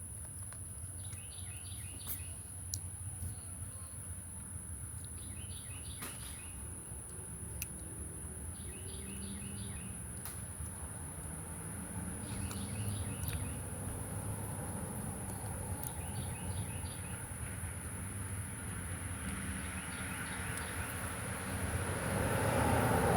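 Outdoor ambience: a bird repeats a short phrase of quick chirps about every three and a half seconds over a steady high-pitched whine and a low hum. A rush of noise builds over the last few seconds.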